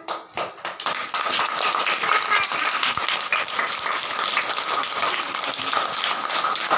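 Applause: a few separate claps, then steady, dense clapping.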